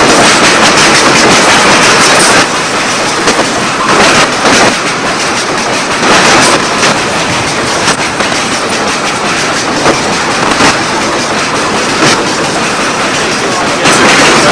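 Ore train rolling past close by: a loud, steady rumble and rattle of the cars with repeated clacks of the wheels over the rail joints, louder for the first couple of seconds and again near the end.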